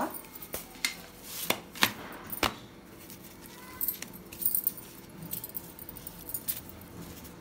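Hands handling a plastic plate of chapatis, with a few sharp clicks and knocks in the first couple of seconds, then light jingling of bangles and soft crackle as the chapatis are torn into small pieces.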